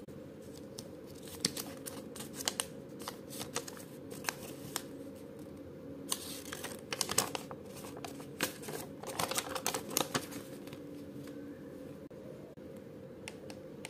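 Folded paper instruction leaflet being handled: irregular crisp rustles and small clicks, busiest from about a second and a half in until about ten seconds, over a steady low hum.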